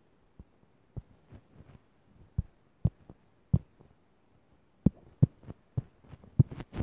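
Fingertips tapping and pressing on a phone's touchscreen, picked up by the phone's own microphone as irregular soft thumps, about a dozen, closer together and louder in the last two seconds.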